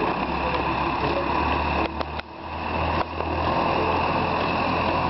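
Diesel engine of a John Deere tractor running steadily as it pulls a mounted reversible plough. The sound drops out briefly about two seconds in, with a couple of clicks.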